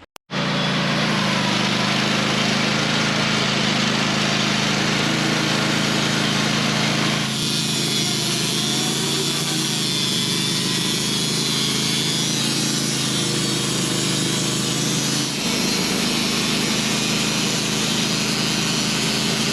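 Sawmill engine running steadily under load as the blade saws through a honey locust log; the higher part of the sound changes about seven seconds in.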